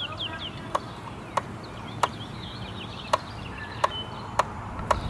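About seven sharp, irregularly spaced clicks and taps from hands working at the Lawn-Boy mower's engine around the governor speed-adjuster collar, with the engine off. A few short falling bird chirps sound near the start.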